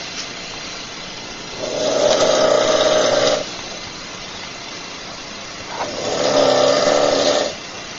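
A person snoring: two long snores about four seconds apart, each lasting well over a second, over a steady hiss.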